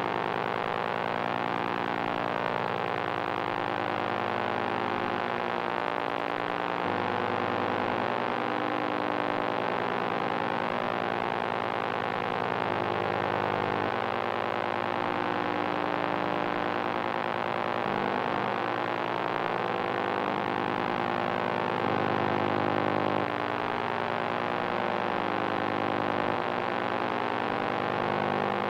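Analog electronic noise drone: a dense, steady buzzing hum made of many held tones, with its lower notes changing abruptly every few seconds.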